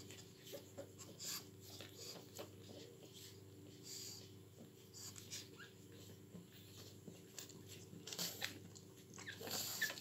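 Ten-day-old pug puppies suckling at their mother: soft, irregular wet smacking clicks and snuffly breathing over a steady low hum, with louder rustling near the end as the mother moves.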